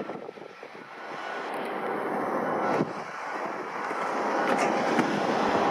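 Airliner engines running, a steady rushing noise with a faint high whine that grows steadily louder after a dip about half a second in, as an airliner comes closer.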